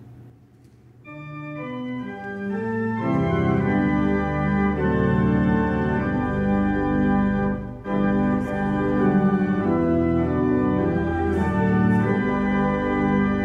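Church organ playing held chords. It comes in softly about a second in and builds to a fuller sound by about three seconds, with a brief break between phrases about eight seconds in.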